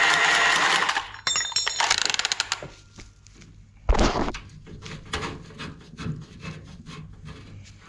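A cordless power tool running with a copper pipe reducer fitted on its nose, cutting off about a second in. A quick rattle of light metallic clinks follows, then a single knock about four seconds in, and then quiet handling rustles.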